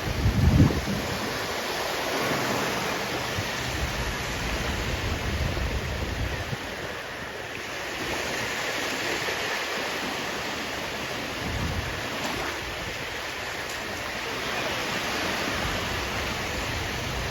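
Sea waves breaking and washing up the shore, a steady rushing surf that swells and eases. About half a second in there is a brief low buffet of wind on the microphone, the loudest moment.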